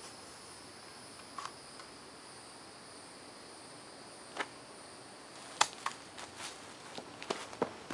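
Crickets chirring in a steady, high, even chorus. In the second half come a few sharp crackles, then footsteps crunching over dry leaves.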